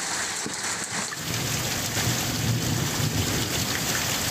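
Large hailstones and heavy rain pelting down, with sharp ticks of hail striking concrete. About a second in the sound changes to a fuller, steady downpour with a deep rumble underneath.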